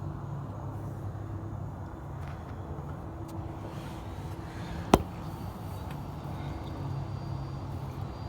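Steady low mechanical hum, like a running motor, with a single sharp knock about five seconds in.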